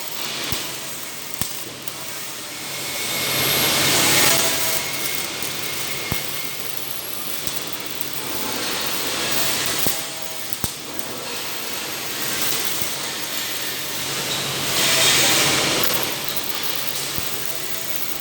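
Industrial welding robot cell at work. A hissing, crackling noise swells and fades three times over a steady machine background, with scattered sharp clicks.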